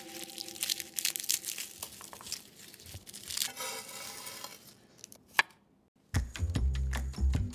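Dry, papery garlic skins crackling and tearing as cloves are pulled apart and peeled by hand. About three and a half seconds in there is a short scrape, then a single sharp click; music with a heavy beat starts near the end.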